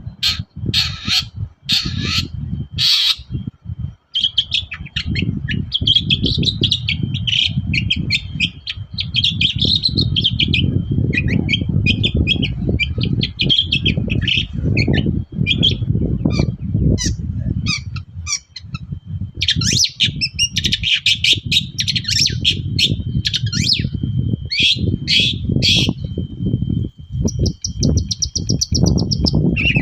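Long-tailed shrike (cendet) singing a rapid, chattering run of harsh and mimicked notes with a fast high trill near the end, over a steady low rumble.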